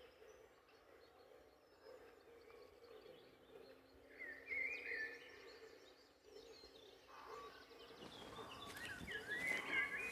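Birds chirping over a quiet outdoor ambience, with short bursts of chirps about four seconds in and again near the end.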